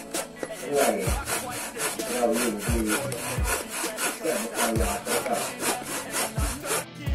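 A narrow hand-held saw blade sawing into a block of wood with quick, even back-and-forth strokes.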